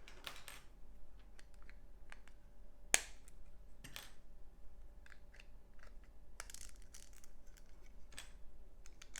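LEGO bricks clicking as pieces are handled and pressed together, with short plastic rustles in between; one sharp snap about three seconds in is the loudest.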